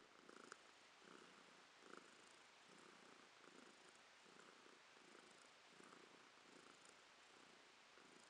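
A domestic cat purring softly, close to the microphone, while rubbing its face against a hand. The purr swells and fades at an even pace with its breathing.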